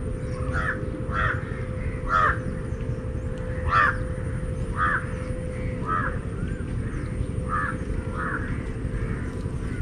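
Harsh bird calls repeated about once a second, the two loudest in the first four seconds, over a steady low rumble.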